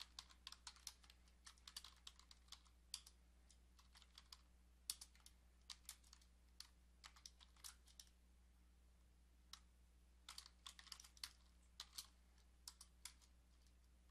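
Typing on a computer keyboard: quick runs of keystrokes with a short pause about eight seconds in, over a faint steady low hum.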